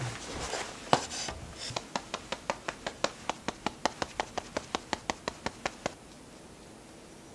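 Fingertips patting the face in a quick, even run of soft taps, about six a second, lasting around four seconds before stopping, as skincare is patted in. One sharper knock comes about a second in.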